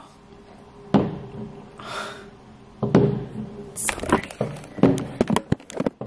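Fireworks going off outside, heard through a closed window: a bang about a second in, another near three seconds, then a run of sharp cracks and knocks.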